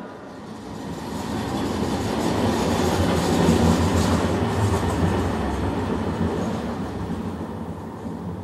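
A tram passes by on the street track, its wheels rumbling on the rails; the sound grows to a peak about halfway through and then fades away.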